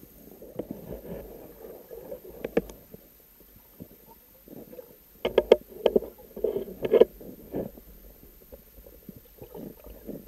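Muffled underwater rumbling and swishing as a spearfisher swims through thick river weed, with a sharp knock about two and a half seconds in and a cluster of clicks and knocks in the middle, gear and weed brushing against the camera.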